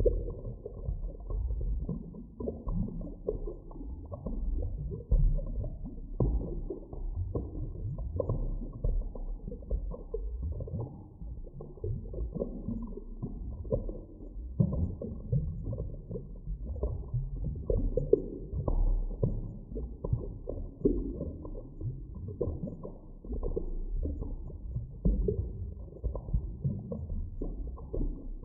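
Deep underwater ambience: a continuous low, muffled rumble with irregular soft knocks and creaks rising and falling in loudness.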